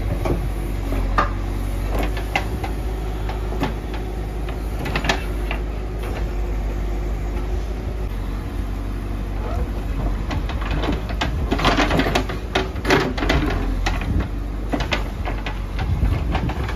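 Diesel engine of a Terex TLB 740S backhoe loader running steadily while its bucket tips soil into a tipper truck and then digs into rocky ground. Stones and dirt clatter and knock throughout, most densely about two-thirds through.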